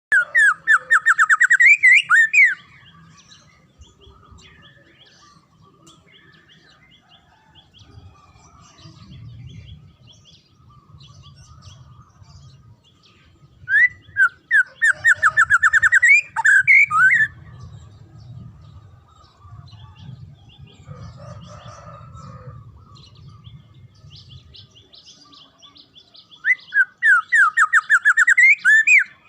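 Songbird singing in three loud bouts of rapid repeated whistled notes, each ending in a rising flourish, with faint twittering between bouts. It is a masteran call recording used to stir caged songbirds into singing.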